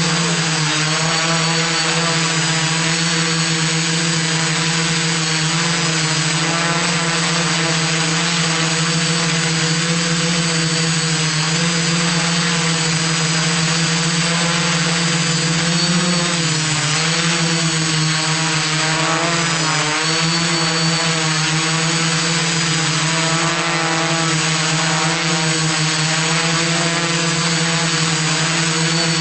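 iDEAFLY iFLY 4S quadcopter's motors and propellers droning steadily in flight, a loud even hum whose pitch dips briefly twice a little past the middle.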